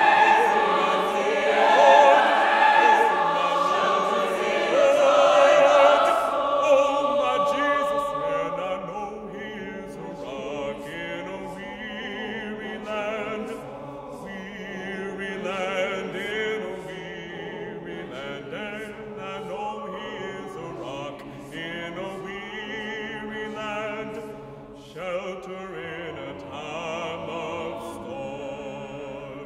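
Mixed choir singing a spiritual with a baritone soloist. The full choir is loud at first, then drops to a much softer level after about seven seconds.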